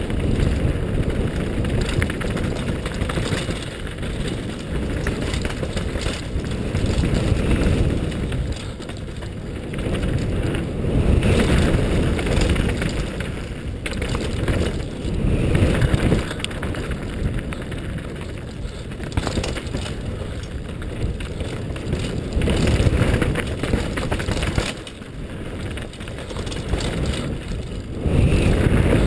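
Wind rushing over a helmet-mounted GoPro's microphone as a 2010 Cove Shocker downhill mountain bike descends a rough gravel and dirt trail, tyres crunching and the bike rattling with many small clicks and knocks over the bumps. The rush swells and eases with speed, dropping briefly a little before the end.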